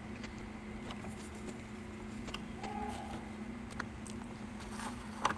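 Quiet room tone with a steady low hum and scattered faint clicks and taps of a book being handled on a wooden pulpit.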